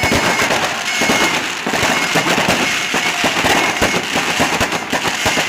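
Fireworks and bangers going off in a rapid, continuous string of loud bangs and crackles.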